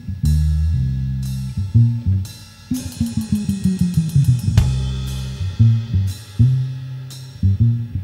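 A live rock-and-roll band's intro: an upright double bass plays held low notes in stop-time hits, punctuated by crash cymbals on a drum kit. About three seconds in, a fast drum roll runs under a descending bass run and ends in a cymbal crash.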